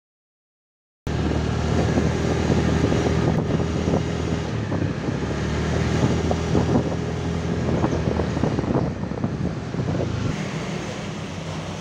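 Vehicle engine running while riding along a road, with wind blowing over the microphone. It starts abruptly about a second in after silence and eases slightly near the end.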